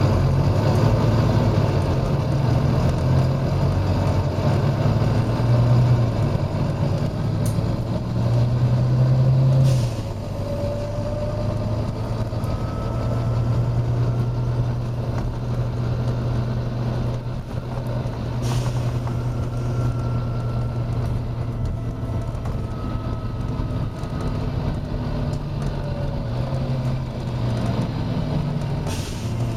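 Volvo B9TL double-decker bus's diesel engine running under load, its pitch stepping up and down for the first ten seconds or so, then settling steadier and a little quieter. Several short hisses of compressed air cut through it, about four in all.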